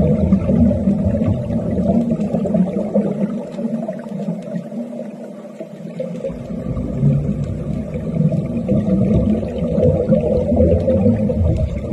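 Underwater wet welding heard through the water: a steady, low rumbling, crackling noise. The deepest rumble drops away for about two seconds in the middle, then comes back.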